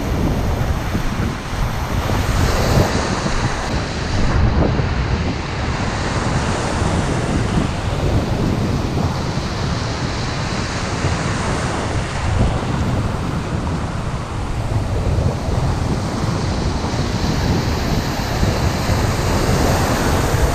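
Sea waves breaking in the surf, with wind noise on the microphone.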